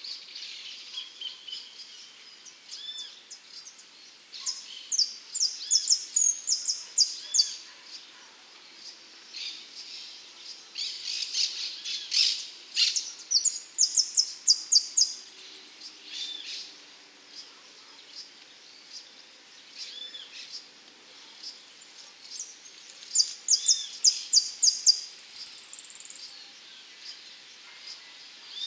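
Saffron finch (the 'dorado') singing in three bouts of song. Each bout is a fast run of high repeated notes lasting a few seconds, with softer single chirps between bouts.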